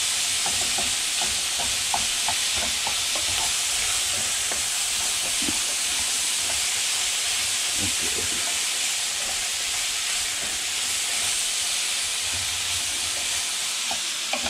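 Ground Hungarian sausage meat sizzling steadily as it fries in a pan, with light scraping and clicking of a spatula stirring it, mostly in the first few seconds.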